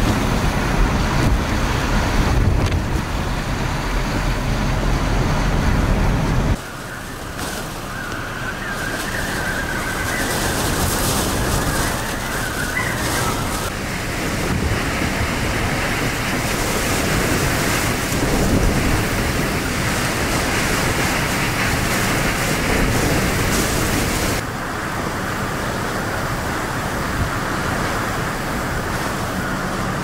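Hurricane-force wind and heavy rain: a loud, steady rushing noise with gusts buffeting the microphone. The sound changes abruptly about six and a half seconds in and again near the end.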